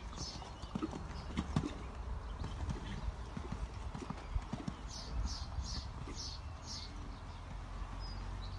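Hoofbeats of a grey stallion cantering on a sand arena: a steady run of dull thuds from the hooves striking soft footing.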